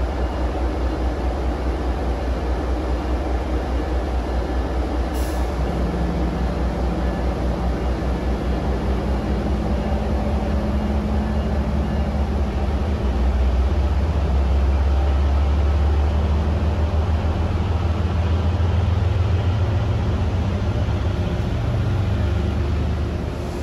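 MBTA commuter rail diesel locomotive pulling a train out of the station, its engine running with a steady low throb. From about six seconds in the engine note rises and grows louder as it powers away, and there is one brief click about five seconds in.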